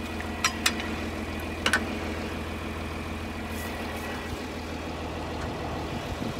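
Tractor engine idling steadily, with a few sharp metallic clinks about half a second in and again near two seconds in as parts of the haybine are handled.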